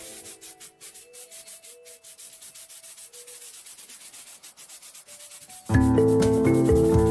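Quick, rhythmic abrasive rubbing strokes, several a second, on rusty sewing machine metal, over faint background music. Near the end, loud music cuts in and covers it.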